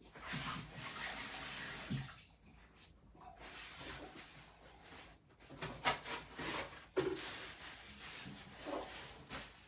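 Water running from a kitchen tap, starting and stopping, with a couple of sharp knocks of things being handled about six and seven seconds in.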